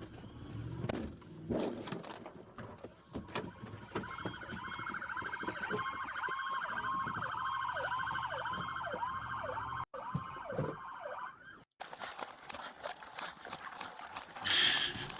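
Police car siren on a fast cycle, its pitch swinging up and down about twice a second. It comes in about four seconds in and stops abruptly at about eleven seconds, with knocks and rumbling noise around it.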